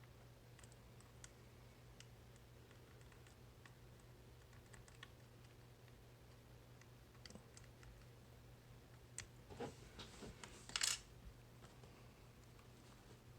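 Faint, scattered clicks of a pick working the pins of a tubular lock, then a louder cluster of clicks and a brief scraping rattle about nine to eleven seconds in.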